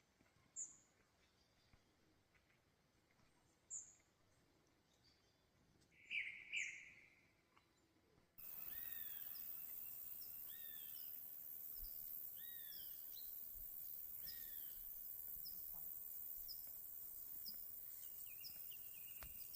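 Birds chirping, a few short scattered calls at first; about eight seconds in a steady high insect buzz starts abruptly, and a bird repeats a short arched call about once a second over it.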